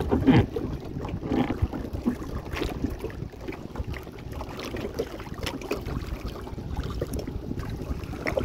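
Strong wind buffeting the microphone over choppy water around a small boat, with scattered short knocks and splashes.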